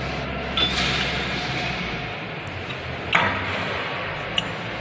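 Steel spline sleeves knocking against the gearbox output shafts of a conical twin-screw extruder as they are fitted by hand: a few sharp metallic knocks, the loudest about three seconds in, over a steady low hum.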